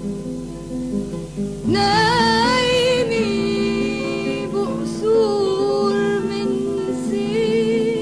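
A song: a plucked guitar plays a repeating accompaniment, and about two seconds in a woman's voice comes in singing long, wavering notes with vibrato over it.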